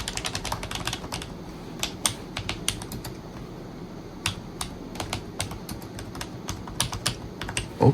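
Typing on an Armaggeddon MM-98S mechanical keyboard with MIMIQ switches: irregular key clacks, quick runs of keystrokes over the first few seconds, then sparser.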